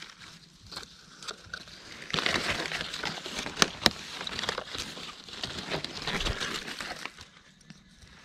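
Rustling and crackling in dry leaf litter and twigs, uneven and full of small clicks, louder through the middle, with two sharp snaps a little after three and a half seconds in.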